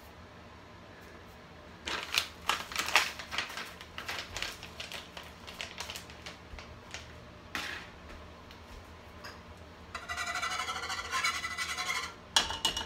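A plastic pouch crinkling as it is handled, about two seconds in. Near the end, a wire whisk scrapes rapidly around a saucepan for about two seconds, stirring the cocoa-and-butter mixture, followed by a single sharp click.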